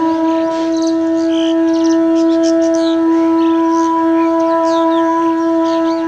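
Background music: a wind instrument holds one long steady note, fading soon after the end. Over it come many short high chirps and whistles of an Asian pied myna.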